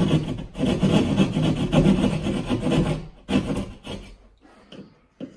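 A small hand tool scraping on drywall in quick repeated strokes, scoring out the outline for an electrical box hole. It stops about three seconds in, comes back briefly, then dies away.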